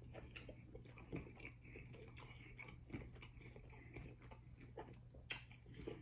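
Faint close-miked chewing of a crunchy hard-shell taco: soft irregular crunches and mouth clicks, with one sharper click about five seconds in.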